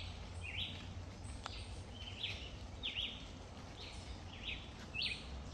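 Small animal calls: short high chirps repeating about twice a second over a low steady background. There is a faint click about one and a half seconds in.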